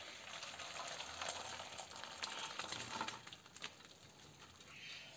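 Hot rice-cooking water gushing from a pot through a stainless steel colander into a bowl beneath, with a few light clinks of metal. The flow eases after about three seconds as the boiled basmati rice is tipped out into the colander.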